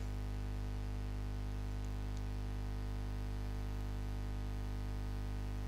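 Steady low electrical hum with a faint hiss, unchanging throughout, with no other sound.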